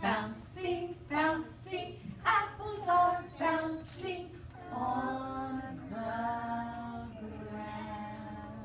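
Singing by a woman's voice with young children joining in, unaccompanied. Short choppy syllables for about four seconds, then long held notes.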